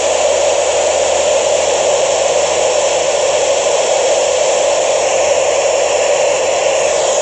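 Ham radio receiver hissing with steady, loud static on the ISS voice downlink between transmissions, with no station coming through.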